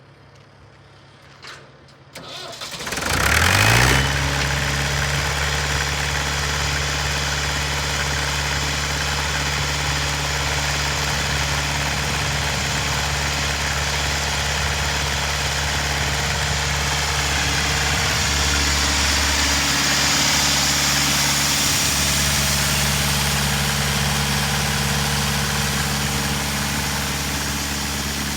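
Jaeger 150 cfm air compressor's engine cranking and catching about three seconds in, after a single click, then running steadily at idle.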